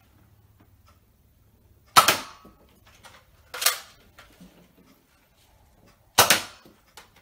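A toy foam-dart blaster fired three times, each shot a sharp snap that fades quickly.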